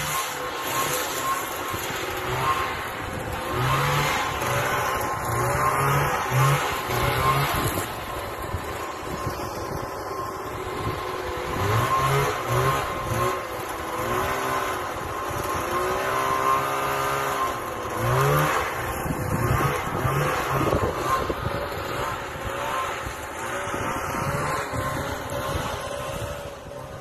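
1977 Ski-Doo Olympic 340 snowmobile's two-stroke engine revving up and down as it is ridden, its pitch rising and falling again and again.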